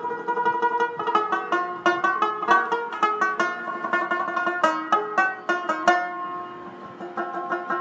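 Background music: a lively instrumental tune on a plucked string instrument, with many quick, sharply struck notes.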